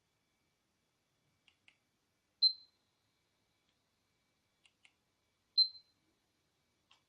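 Yi Lite action camera's buttons clicking faintly, twice in a pair, each pair followed by a short high beep; two beeps about three seconds apart.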